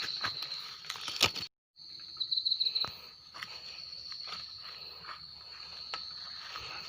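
Steady high-pitched insect drone with scattered rustles and snaps, one louder snap just over a second in. The sound cuts out briefly about a second and a half in, and a fast pulsing trill joins the drone for about half a second soon after.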